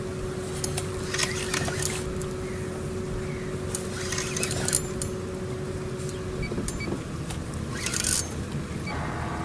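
Fishing reel ratcheting and whirring in short bursts, three times, as a hooked wels catfish is fought on braided line, over a steady low hum.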